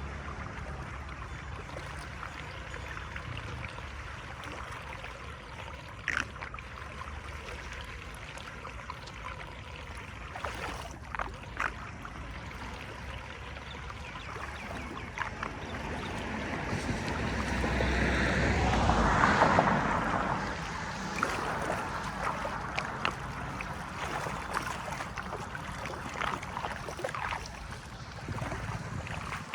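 Floodwater flowing and gurgling as it drains, with scattered clicks and knocks. The rush swells louder about two-thirds of the way through, then settles back.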